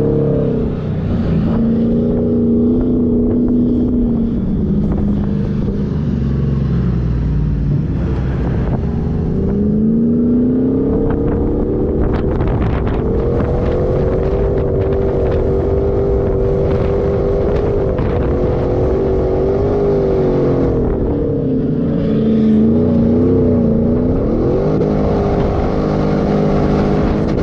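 Off-road 4x4's engine revving up and down repeatedly while driving through sand dunes, its pitch rising and falling with the throttle over a steady rumble.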